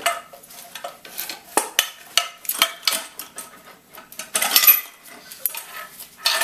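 Irregular metal-on-metal clinks and knocks of Royal Enfield Bullet 350 engine parts being handled, with a longer, louder scraping rattle a little past four seconds in.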